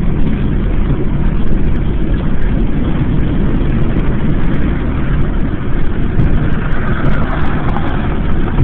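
Steady low rumble of a car in motion, heard from inside the cabin: road and engine noise.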